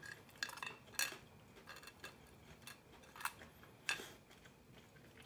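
Scattered light clicks and taps of a bamboo kebab skewer knocking against a plate as the meat is pulled off it by hand, about six in all.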